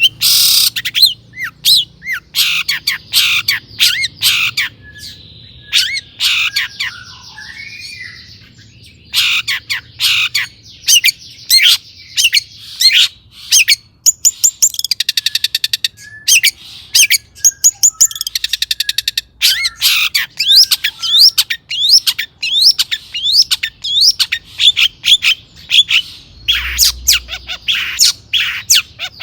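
Long-tailed shrike singing a fast, varied run of sharp rising chirps, harsh rasping calls and quick trills, with a short lull about eight seconds in.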